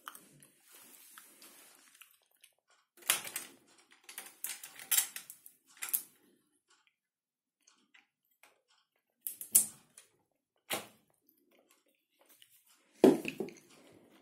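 Scattered clicks, clatter and knocks of hard plastic and metal as the electric screwdriver and hand coffee grinder are handled on their wooden wall stand, with no motor running; the loudest is a knock with a dull thud near the end.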